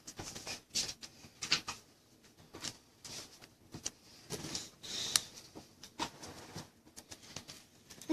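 Trading cards being handled and slid into a plastic card sleeve: soft scraping rustles and light clicks, coming and going.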